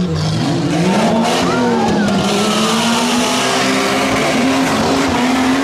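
Tuff truck engine revving up under hard acceleration and then held at high revs, with a hiss of spinning tyres and dirt joining a couple of seconds in.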